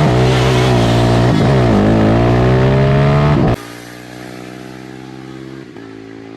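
A sport ATV engine at full throttle in a race run. Its pitch dips briefly about two seconds in, as at a gear shift, then climbs again. About three and a half seconds in, the engine sound cuts off abruptly and a much quieter steady drone is left.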